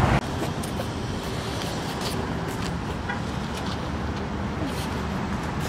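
Steady traffic noise of cars in a parking lot: an even rumble with no clear single event.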